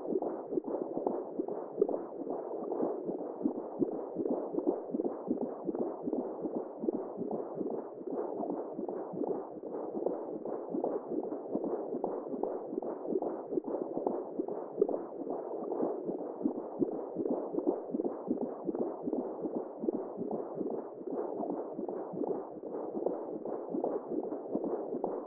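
Womb sound for settling a baby: a steady, muffled whooshing noise with no highs, flickering with dense, uneven pulses.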